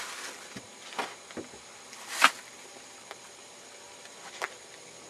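A few scattered sharp knocks and clicks over a faint steady hiss, the loudest one a little over two seconds in.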